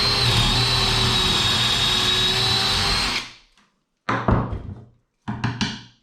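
Cordless drill running steadily with a high whine as it bores a hole into wood, winding down after about three seconds; two short bursts follow a second or so later.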